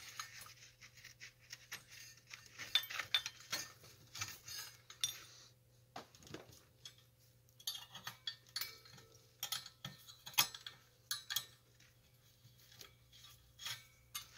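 Light metal clinks and rubbing as the nickel-plated tubes of a swing arm lamp are handled and the old cord is pulled out through them, in scattered, irregular small knocks.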